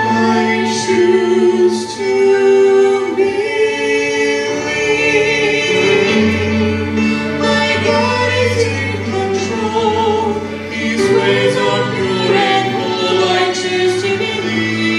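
A choir singing sustained lines over a musical accompaniment.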